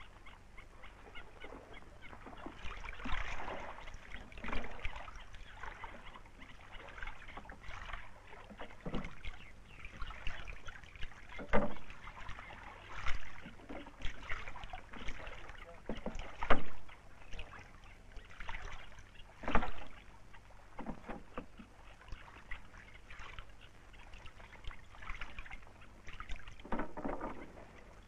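Wooden rowboat being rowed: oars dipping, splashing and knocking at irregular intervals, a few strokes louder than the rest.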